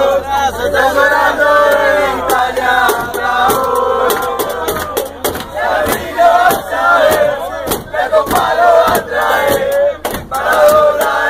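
A crowd of Argentina football fans chanting a football song loudly in unison, with sharp hand claps, in the packed cabin of a bus.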